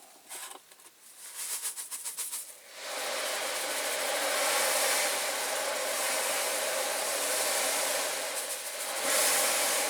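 Die-cast toy parts clicking and rattling as they go into a bottle of caustic soda stripper, followed from about three seconds in by a steady hiss that swells slightly near the end.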